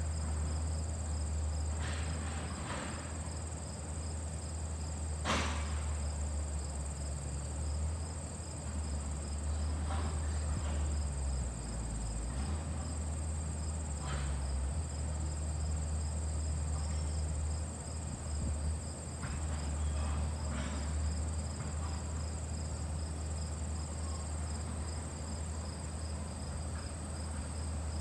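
LG air conditioner's condenser unit running steadily with a low hum, its condenser fan motor newly replaced. Crickets chirp steadily over it, and there are a few short clicks or knocks.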